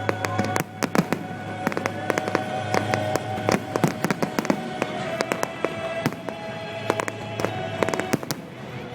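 Aerial fireworks going off in quick succession, many sharp bangs and crackles, over music with long held notes.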